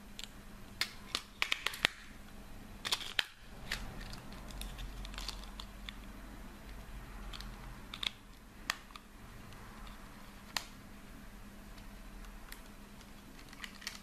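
Sharp plastic clicks and taps from AA batteries and a toy RC car's plastic remote control being handled and fitted together: a quick run of clicks in the first two seconds, then single clicks spread out.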